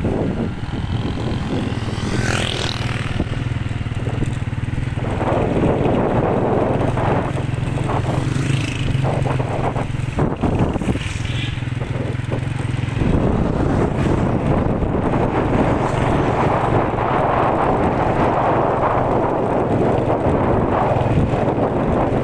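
Engine of a moving road vehicle running steadily, with road and wind noise on the microphone; the wind rushes harder from about thirteen seconds in.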